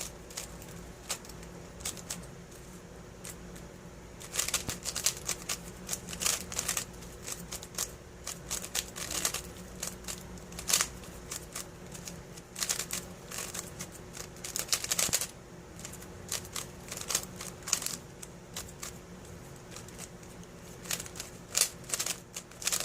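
GAN 354M magnetic speedcube being turned during a solve: bursts of quick plastic clicking and clacking from the layer turns, with short pauses between the bursts.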